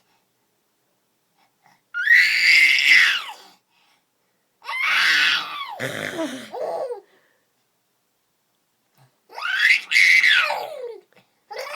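A person's voice making three silly, high-pitched nonsense vocal noises, each lasting a second or two, with the pitch sliding down at the end of each; short silences separate them.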